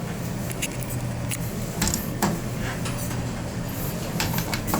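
Otis elevator car travelling down: a steady low hum of the moving car with a few light clicks and rattles.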